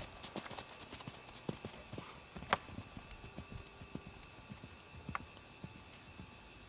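Hoofbeats of a ridden pony hunter on soft arena sand: a run of soft thuds, with a sharp click about two and a half seconds in and another near five seconds.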